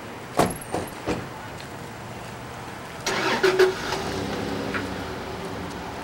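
Three sharp knocks, then a car or truck engine that starts with a short burst about three seconds in and settles into a steady idle.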